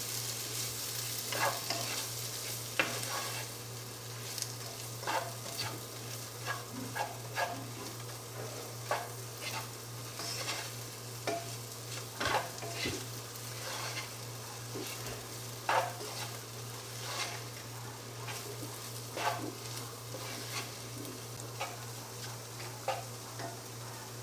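Chopped chicken sausage sizzling as it fries in an onion and spice masala in a pan, with a spoon stirring it and knocking and scraping against the pan in irregular strokes.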